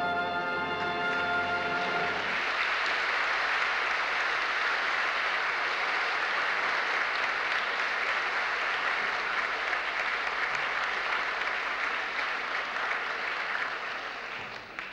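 The music's final held chord stops about two seconds in, and an audience breaks into steady applause, which fades away near the end.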